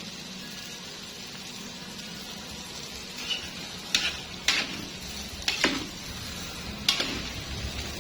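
Hot oil sizzling steadily as fried snacks cook. Five or six sharp clicks come between about three and seven seconds in.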